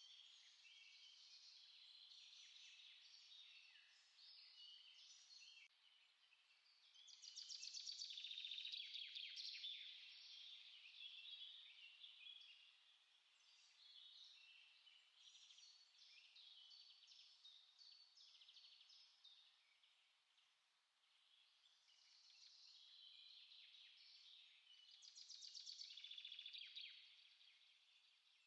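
Small songbirds chirping and singing, several overlapping at once, with fast louder trills about a quarter of the way in and again near the end.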